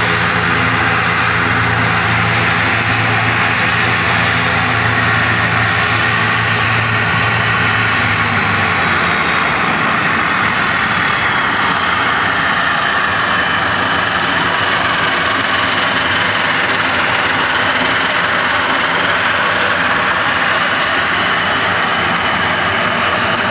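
CASA C-295 twin-turboprop transport taxiing past, its engines and propellers running with a loud, steady turbine whine and propeller drone. The whine falls slowly in pitch as the aircraft moves by, and a low hum underneath drops away about eight or nine seconds in.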